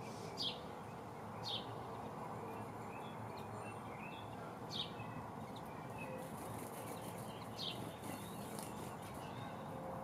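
Small songbirds chirping: four short, sharp, falling chirps spaced a second to a few seconds apart, with fainter twittering in between, over steady outdoor background noise.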